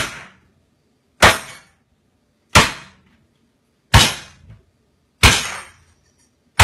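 Cast iron frying pan brought down flat onto raw chicken breasts on a cutting mat, pounding them thin: a sharp smack about every second and a third, in an even rhythm.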